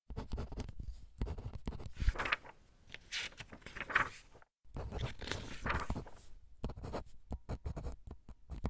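Rustling and scraping handling noises with scattered clicks and several short swishes, broken by a brief moment of silence about halfway through.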